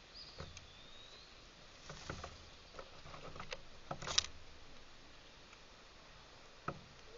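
A small songbird gives one thin, high call in the first second, then scattered soft clicks and taps follow, the loudest about four seconds in.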